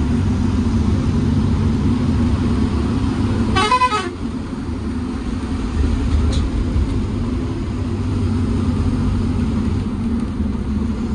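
Lorry's diesel engine droning steadily inside the cab while driving, with a vehicle horn honking briefly about three and a half seconds in.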